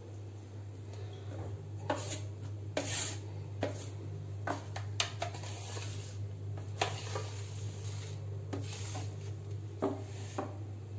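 A plastic sink wiper (squeegee) dragged in short strokes across a wet granite sink, pushing the water off with faint rubbing and scraping sounds and a few sharper scrapes, over a steady low hum.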